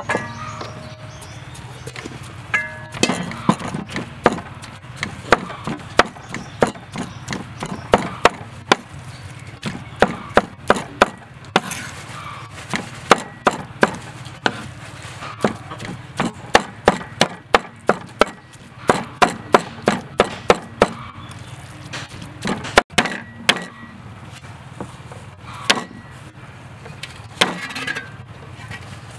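Cleaver chopping and mincing raw pork on a wooden cutting board: a run of sharp knocks, about two a second, starting a few seconds in, with a short pause about three-quarters of the way through.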